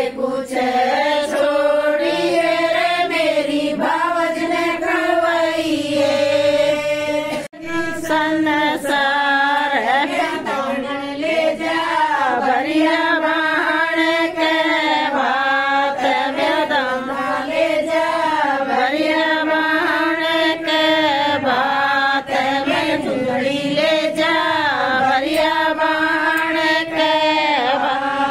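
A group of women singing a traditional Haryanvi wedding folk song together in unison, with long held, wavering notes.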